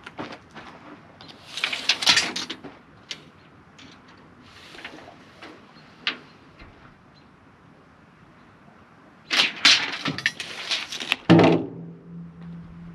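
Workshop handling noises: scattered knocks and clatter. A longer, louder stretch of scraping near the end finishes in a thud, followed by a short steady hum.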